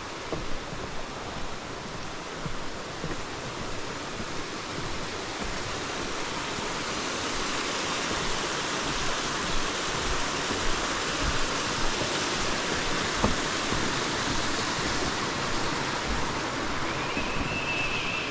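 Running water from a creek or small waterfall, a steady rushing that swells through the middle and eases toward the end. A short high chirp comes near the end.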